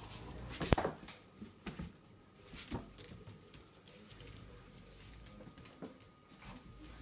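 Dogs playing tug-of-war with a blanket on a tiled floor: scattered clicks and scuffles from their paws on the tiles and from the pulled cloth, with one sharp knock about a second in.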